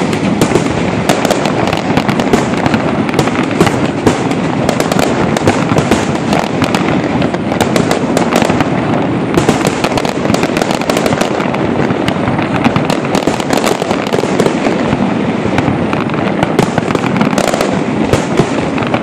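Fireworks barrage at full intensity: a dense, unbroken run of bangs and crackles, loud throughout.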